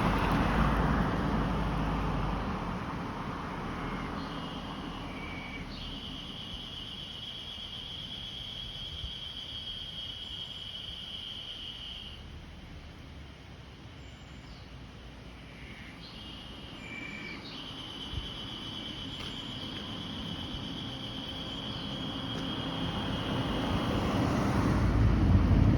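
Outdoor ambience: a low rumble fades over the first few seconds and builds again near the end. Between these, an insect's high, steady buzzing trill is heard twice, each time for several seconds.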